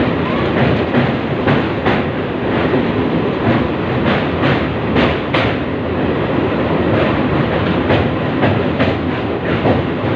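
Train running on the rails: a steady rumble with irregular clacks of the wheels passing over rail joints.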